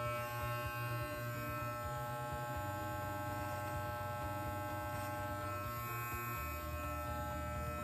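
Electric hair trimmer buzzing steadily while it trims the hair along the side of the head by the ear.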